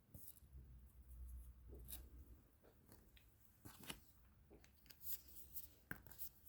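Faint, scattered taps and scratchy strokes of coloring on paper, with a low hum early on.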